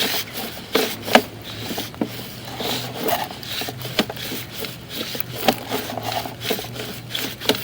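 Sewer push-camera cable being pulled back through 4-inch PVC sewer pipe: irregular rubbing and scraping with scattered sharp knocks, over a low steady hum.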